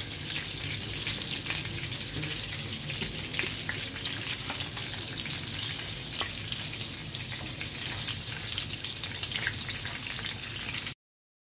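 Breaded mince-stuffed onion rings shallow-frying in oil over low heat: a steady sizzle with small crackling pops. It stops suddenly near the end.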